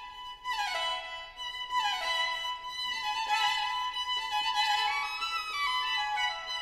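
Background music led by a violin, playing phrases that slide down in pitch again and again.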